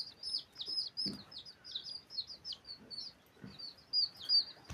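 Small birds chirping without a break: quick, high, downward-sliding chirps, about four a second.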